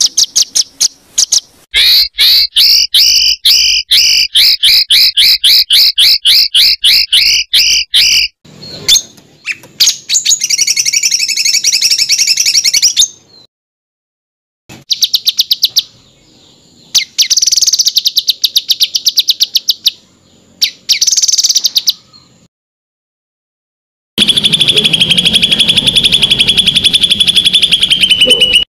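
Songbird giving fast trains of sharp, repeated whistled notes ('tembakan' bursts), several separate recordings spliced one after another with abrupt short silences between them.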